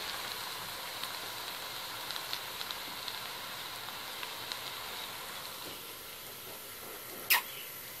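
Chopped onions sizzling steadily in oil in a steel wok over medium heat, the sizzle easing slightly in the second half. A single sharp click about seven seconds in.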